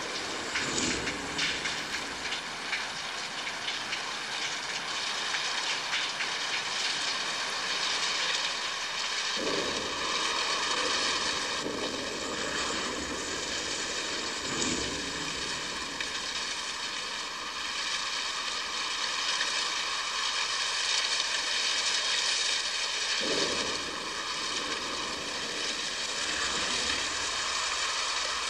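Steady rain hissing, with rumbles of thunder rolling in twice, about a third of the way in and again past the three-quarter mark.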